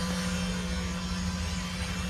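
Radio-controlled model boat's motor running with a steady hum as the boat moves off across the water.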